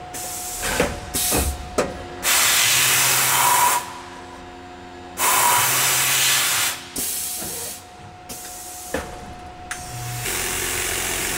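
Tormach PCNC 1100's automatic tool changer loading a tool into the spindle: clacks and clicks of the mechanism, two long blasts of compressed air hissing from the pneumatic drawbar about three seconds apart, and more clicks. A steady machine running sound sets in near the end.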